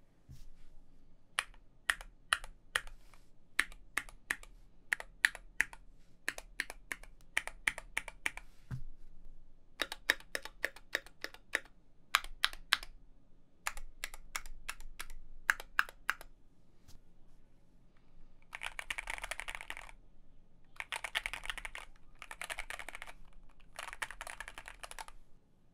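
Mechanical keyboard with Gateron Ink Black V2 linear switches in a steel-plated Keychron Q2 with foam and tape mod, typed on. At first the keys are pressed singly and in short runs. Then come four bursts of fast typing, each lasting about a second and a half.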